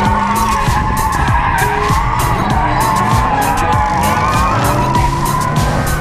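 Drifting cars' tyres skidding and engines running, heard from inside a turbocharged Mazda Miata's open cockpit. Music with a steady beat and a stepping bass line plays over it.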